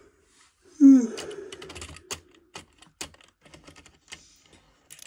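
Model railway goods wagons rolling slowly along the track, their wheels giving a run of light, irregular clicks. About a second in there is a short low vocal 'mm' with a falling pitch.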